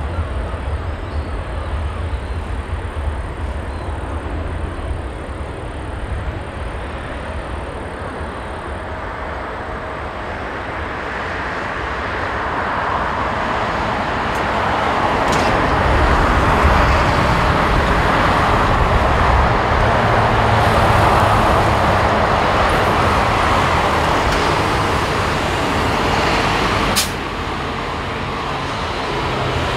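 Airbus A350-900 jet engines (Rolls-Royce Trent XWB turbofans) running at taxi power as the airliner rolls past, a steady rushing roar that grows louder from about a third of the way in. There is a sharp click near the end, after which the level drops suddenly.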